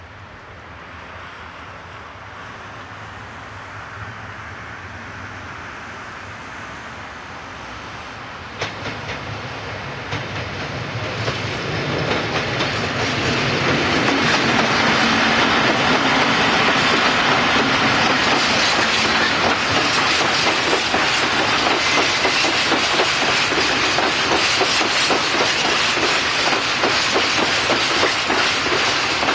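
A British Rail Class 60 diesel locomotive and its freight wagons, getting steadily louder as the train approaches and then passing close. Once the locomotive draws level, the wagon wheels keep up a loud, fast, steady clickety-clack over the rail joints.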